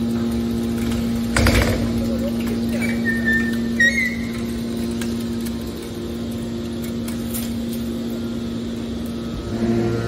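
Hydraulic metal scrap baler running with a steady hum from its hydraulic power unit while the ejector ram pushes a compressed bale of metal scrap out of the chamber. There is a single knock about a second and a half in and brief high squeaks around four seconds. The hum changes pitch just before the end.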